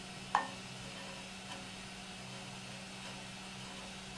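A purple PLA 3D-printed vase set down on a printer's blue print bed: one sharp tap about a third of a second in and a faint tick about a second later, over a steady low hum.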